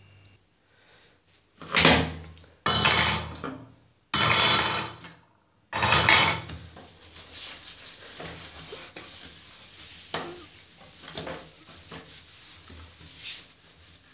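Cleaning a glass-top gas stove: four loud metallic clatters in the first six seconds, then a cloth wiping the glass with a few light knocks.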